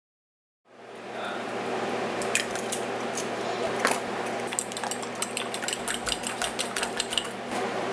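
Fork whisking eggs in a glass mixing bowl: quick clinks of metal on glass, about six a second, from about halfway through until near the end, after a few separate clicks. A steady low hum lies underneath.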